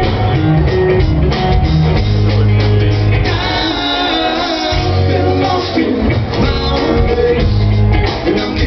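Live rock band playing loud, with electric guitar, bass and drums and a singing voice. The bass drops out for a moment around the middle while the upper parts carry on.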